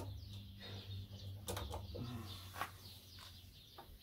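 Faint clicks and handling noise of a steel part being set in a small bench press, with cloth rubbing close to the microphone, over a low steady hum. Birds chirp faintly in the background.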